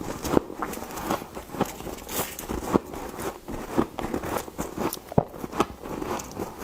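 Frost being scooped, with irregular crunching and scraping of the icy crystals, several crunches a second.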